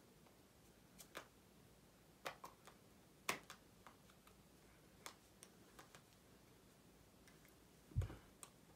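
Near silence broken by scattered faint taps and clicks of hands touching and moving while signing, with a heavier low thump near the end.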